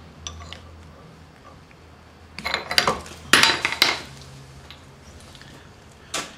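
Metal hand tools knocking and clinking against a steel vise: a quick run of sharp metallic strikes a little over two seconds in, lasting about a second and a half, then one more strike near the end.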